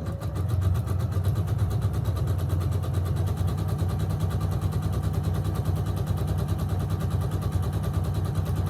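Domestic sewing machine running steadily at speed, stitching a dense, narrow zigzag satin-stitch line with a rapid, even needle rhythm.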